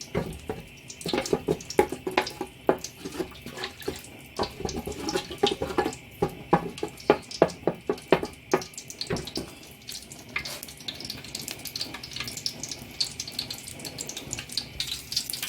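Palm oil heating in a pot to be bleached, crackling and popping irregularly over a steady hiss. After about ten seconds the pops give way to a finer, higher crackle.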